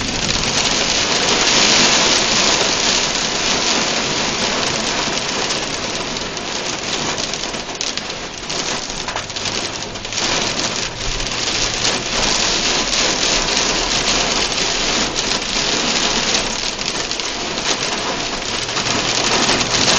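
Very heavy rain with some small hail beating on a car's roof and windshield, heard from inside the car as a dense, steady downpour.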